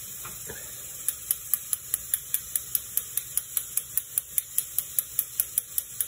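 A spoon knocking against a small metal mesh sieve to sift flour onto a plate: quick, light, even clicks, about five a second, starting about a second in.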